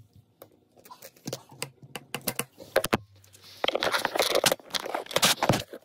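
Handling noise on a phone's microphone: a run of separate clicks and taps, then dense rubbing and scraping from about three and a half seconds in as a hand grips and covers the phone.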